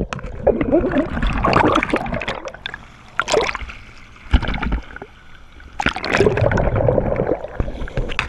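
Underwater bubbling and gurgling from a diver's exhaled air. It comes in two long bursts, one at the start and one about six seconds in, with a quieter stretch and a couple of sharp clicks between.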